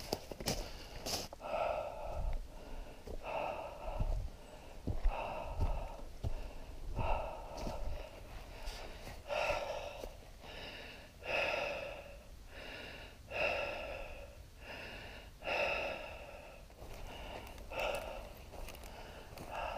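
A walking hiker's breathing, close and audible, a breath in or out about every two seconds.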